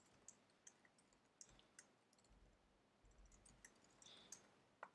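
Faint, irregular keystrokes on a computer keyboard as text is typed.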